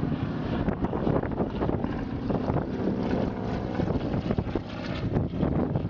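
Aircraft engine droning steadily as a plane flies past overhead, with wind buffeting the microphone.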